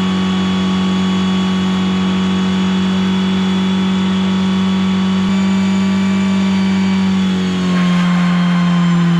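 Car engine running at a steady speed, left running to cool down after a skid run; its pitch steps up slightly about five seconds in and drops a little near the end.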